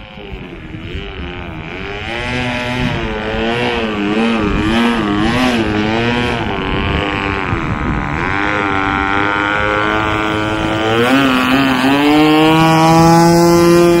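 Nitro (glow-fuel) model aircraft engine on a Seagull Boomerang V2 trainer running as the plane taxis, its pitch wavering up and down, then climbing to a steadier, higher note and getting louder near the end. The owner thinks the engine sounds good.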